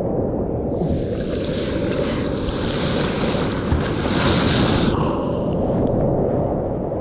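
Sea water rushing and splashing around a surfboard, with wind buffeting the microphone, heard as a steady rumble. A hissing wash of whitewater spray comes in about a second in and eases off about five seconds in.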